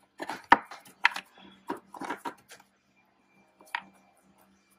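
Sharp plastic clicks and knocks from wiring-harness clips being popped free and plastic airbox parts being handled: several in quick succession, then a pause and a single click near the end.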